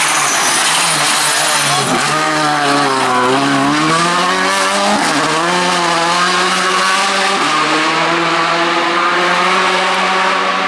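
Škoda Fabia R5 rally car's turbocharged four-cylinder engine at high revs as it passes. Its pitch dips twice, about two and five seconds in, then holds steady.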